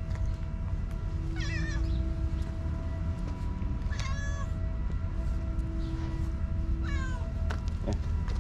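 Hungry stray cats meowing for food: three drawn-out, wavering meows about three seconds apart.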